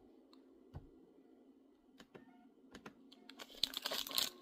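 A few light, scattered taps and clicks, then from about three and a half seconds in, the crinkling of a foil booster-pack wrapper being handled.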